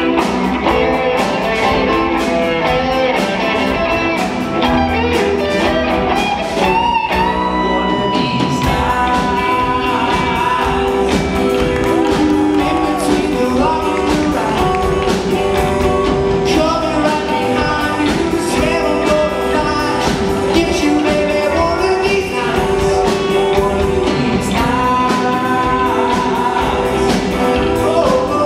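Live rock band playing electric guitars, bass and drum kit, with a lead singer.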